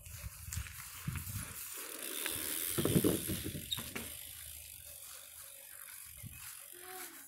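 Bicycle freewheel ticking as a small BMX bike coasts, with its tyres rolling on asphalt; the rolling noise grows to a louder rumble about three seconds in, then fades.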